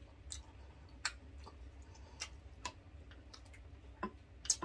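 Quiet eating sounds: a few sparse, soft clicks and taps from wooden spoons on a glass bowl and a rice bowl, and from chewing, the sharpest near the end. A low steady hum runs underneath.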